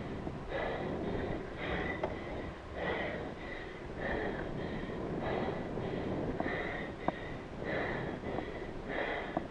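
A cyclist breathing hard, a heavy breath about once a second, from hard effort on the bike. A steady wind rush on the microphone runs underneath, with one sharp tick about seven seconds in.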